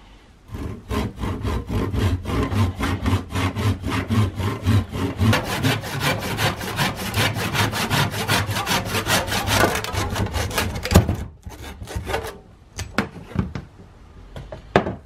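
Handsaw cutting through an old wooden sledgehammer handle right at the head, in quick, even back-and-forth strokes that stop about eleven seconds in. A few separate knocks follow.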